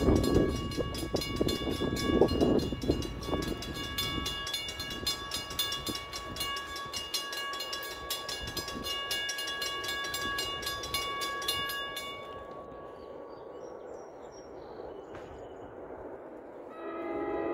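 Railroad grade-crossing warning bell ringing rapidly as the crossing gates come down for an approaching train, then stopping about twelve seconds in. A low rumble fills the first few seconds, and near the end a train horn starts to sound.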